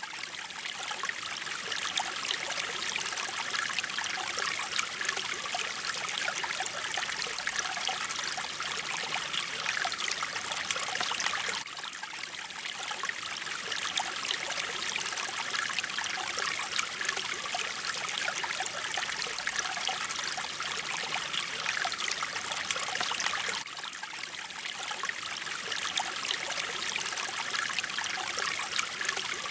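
Mountain stream flowing and trickling steadily over rocks. The level dips briefly twice, about twelve seconds apart.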